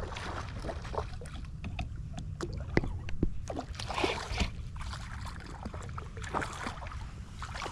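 Water splashing and scattered sharp clicks and knocks as a hooked redfish thrashes at the surface while being reeled in, over a steady low wind rumble on the microphone.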